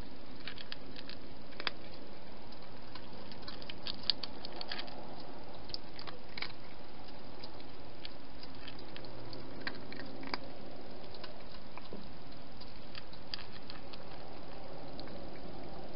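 A cat eating from a plastic dish: irregular small crunching clicks as it chews, over a steady background hiss.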